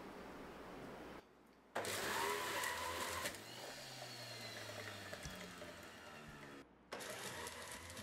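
Nutribullet centrifugal juicer's motor running as carrots are fed through: a steady whir with a faint high whine. It breaks off briefly twice, about a second in and again near the end.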